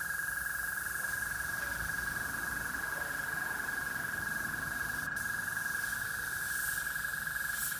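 Airbrush spraying paint with a hiss of compressed air, over a steady high-pitched whine.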